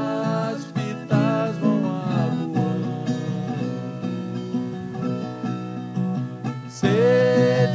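Viola caipira picked under two men singing a música caipira duet. The voices drop out after about two and a half seconds, leaving the viola alone, and come back in loudly near the end.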